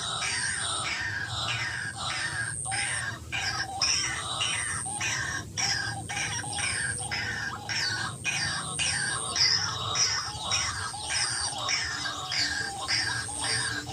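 White-breasted waterhen calling: a fast, unbroken series of repeated call notes, about two to three a second.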